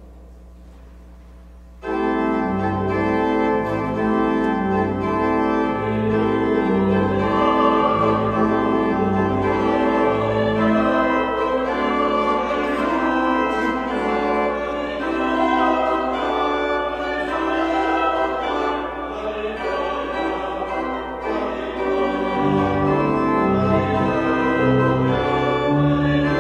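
Church organ starting about two seconds in and playing sustained chords over a moving bass line.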